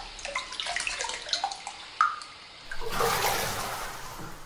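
Bathwater sounds: scattered drips and small splashes, then a louder rush of splashing water about three seconds in that fades away, as of someone getting out of a bath.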